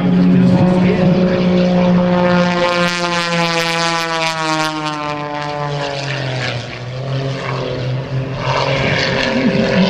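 Modified Pitts Special aerobatic biplane in flight, its piston engine and propeller giving a loud, steady drone. The tone slides lower in pitch midway through, then holds.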